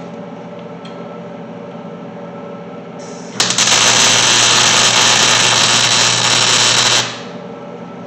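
MIG welder arc tack-welding a steel shock mount onto a truck frame: it strikes suddenly about three and a half seconds in, runs steadily for about three and a half seconds, then cuts off.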